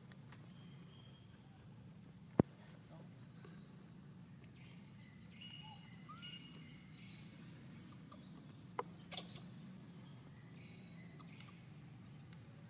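Faint outdoor ambience of a steady, high insect drone with a few short chirps, broken by one sharp click about two and a half seconds in and two softer clicks about three-quarters of the way through.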